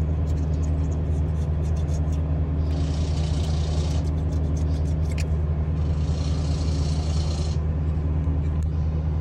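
A razor blade scraping old silicone off the Cummins ISB engine block's oil-cooler mounting surface: short scratchy strokes at first, then two longer hissy scrapes about three and six seconds in. A steady low engine drone runs underneath and is the loudest sound.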